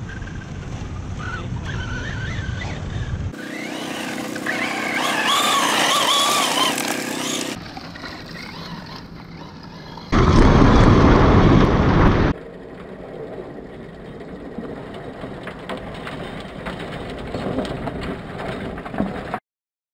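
Electric 1:5-scale AutoRally rally truck driving hard on a dirt track, its motor whining and rising and falling in pitch with speed. The sound comes in several segments that change abruptly, with a loud rush of noise for about two seconds near the middle. It cuts off just before the end.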